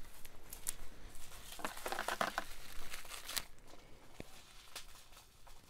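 Wrapping crinkling and tearing as a wrapped piece of jewelry is unwrapped by hand, busiest a couple of seconds in, then quieter.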